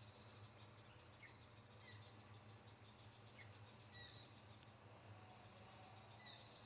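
Faint outdoor ambience: short, thin bird chirps about once every second or so over a steady high insect hum.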